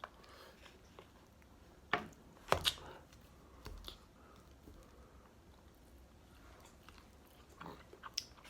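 Close-up eating sounds: a few short crunchy bites and chewing, the loudest a little over two seconds in, separated by quiet stretches.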